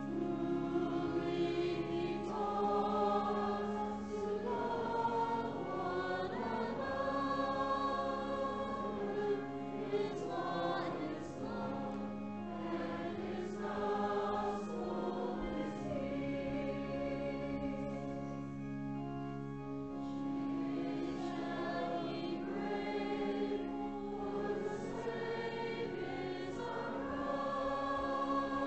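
Congregation singing a hymn together, accompanied by organ holding long sustained low notes.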